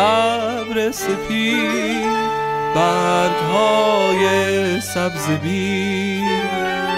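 Persian chamber ensemble of Western bowed strings with Persian instruments, playing a slow melodic passage: bowed strings hold and glide between long notes with vibrato over sustained lower notes.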